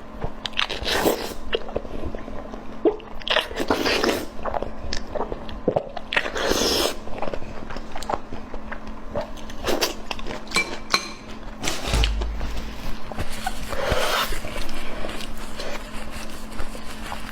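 Close-miked chewing and biting, with irregular wet, crunchy mouth noises, over a steady low hum.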